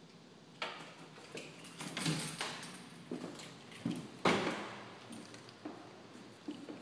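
Irregular knocks and clunks in a bare room, about one every half second to second, the loudest about four seconds in.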